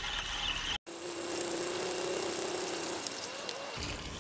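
Braided fishing line whirring off a spinning reel's spool during a long surf cast: a steady hum that slowly falls in pitch and dies away near the end, over a light hiss.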